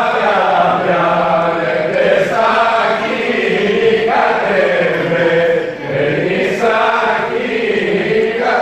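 A group of voices singing a Greek folk dance song together in phrases of about two seconds, with no instrument standing out.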